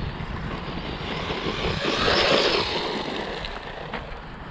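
Small electric RC buggy running on a gravel path, its tyres crunching over the gravel. The sound swells as the buggy comes close, about two seconds in, with wind rumbling on the microphone underneath.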